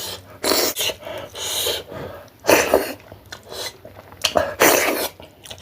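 A person's sharp, noisy bursts of breath through nose and mouth, sneeze-like, about four or five of them, each around half a second long.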